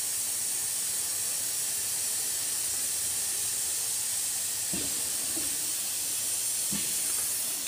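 Automatic sanding machine grinding an aluminium pot: an abrasive belt pressed by a sanding head against the base of the spinning pot makes a steady high hiss. A couple of faint knocks come about five and seven seconds in.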